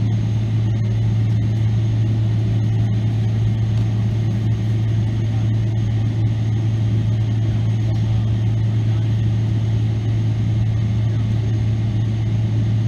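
Steady low hum inside the cabin of a taxiing Boeing 777-300ER, its GE90-115B engines running at low power together with the cabin air: one constant droning tone that does not change in pitch or loudness.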